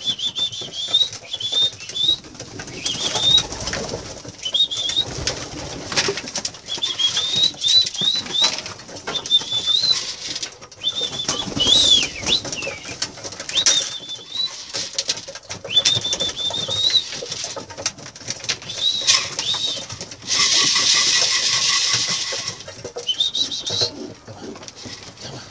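Homing pigeons feeding on scattered corn: many sharp pecking clicks, short high chirping notes repeated throughout, and a burst of wing flapping about twenty seconds in.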